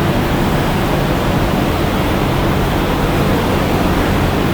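Steady, loud rushing noise with a low hum underneath, unchanging throughout.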